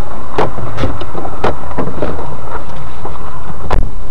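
Vehicle fire with a gas cylinder involved: a loud, distorted rumble of burning, broken by irregular sharp pops and cracks about every half second. The loudest crack comes near the end.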